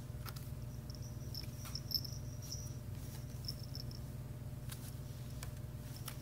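A kitten scrabbling in a woven seagrass basket: scattered light clicks, scratches and rustles from its claws and body on the weave, over a steady low hum. A faint, thin, high ringing comes and goes in the middle.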